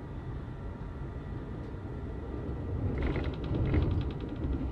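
A passenger train running, heard from inside the carriage: a steady low rumble of wheels on the rails with a faint steady whine. About three seconds in, the rumble swells and a fast run of clicks sets in.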